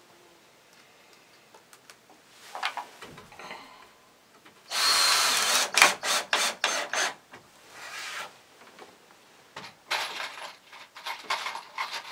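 Hand-held power drill driving screws into wooden pallet boards. It runs for about a second, then gives a quick string of short trigger bursts, one more a little later, and another cluster of short bursts near the end.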